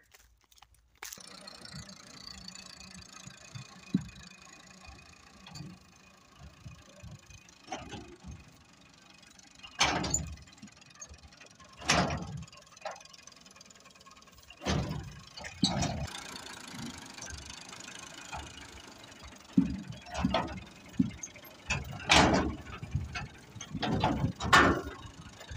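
Tractor engine running as it tows a wheat thresher over a field, with steady mechanical rattling and clanking from the machinery. Several loud bumps and knocks stand out over it, bunched near the middle and the end.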